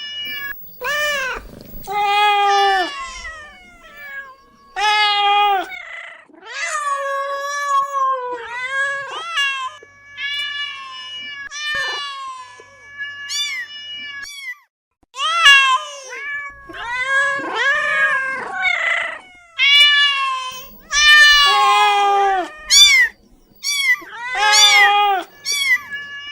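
Domestic cats meowing again and again: a long series of drawn-out meows with short gaps between them.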